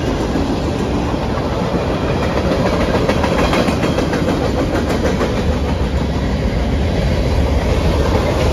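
Freight train of tank cars and covered hopper cars rolling across a trestle close overhead: loud, steady wheel noise on the rails, with clicks of wheels over rail joints through the middle.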